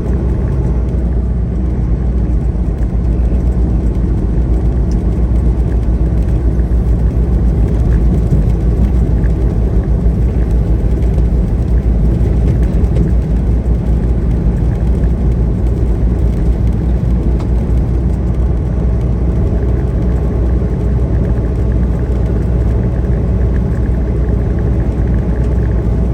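Heavily loaded semi truck driving at steady speed: a constant low engine drone with road rumble.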